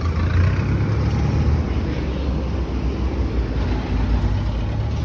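Motor vehicle engine running on the road, a steady low rumble of street traffic.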